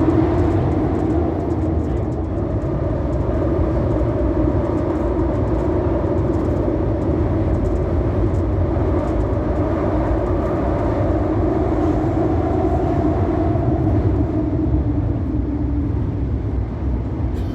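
CAF-built Série 500 metro train running along the track between stations, heard from inside the car: a steady low running noise with a constant motor hum.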